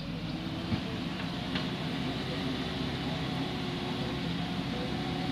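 Heavy diesel machinery engine running steadily, with a brief knock about a second in.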